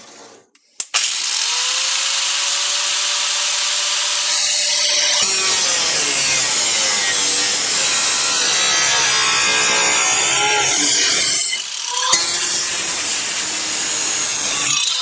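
Electric grinder switching on about a second in and running up to speed, then cutting into the sheet-metal trunk floor pan from about five seconds in, with a brief let-off near twelve seconds before cutting on.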